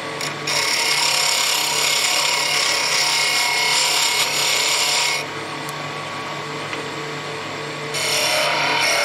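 A turning tool cuts a spinning wood spindle on a lathe, making a steady shaving hiss over the low hum of the lathe. The cut runs from about half a second in to about five seconds, drops to just the lathe running for a few seconds, and starts again near the end.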